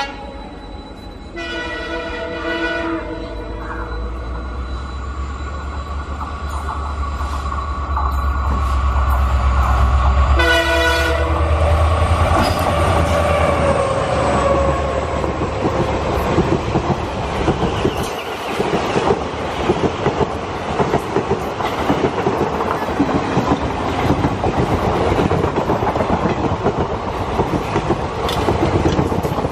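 Express train behind a WDG4 diesel locomotive approaching and passing close by. There is a horn blast about a second and a half in and a shorter one about ten seconds in, while the locomotive's two-stroke diesel swells to a deep rumble as it goes past. After that the coaches run by with a steady, rapid clickety-clack of wheels over the rail joints.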